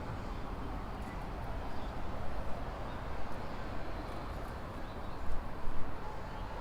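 Steady low rumble of city traffic, with a few louder bumps a little past five seconds.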